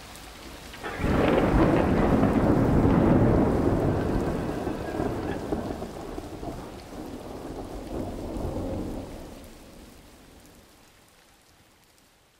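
A thunderclap breaks about a second in and rolls on as a long rumble over steady rain, swelling once more near the end before dying away and fading out.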